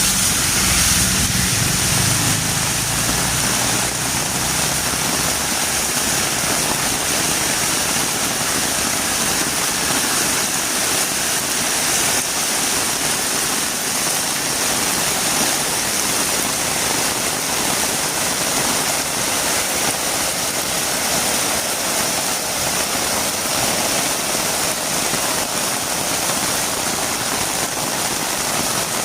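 Heavy rain falling steadily, a dense even hiss. A low engine hum from a vehicle fades out in the first few seconds.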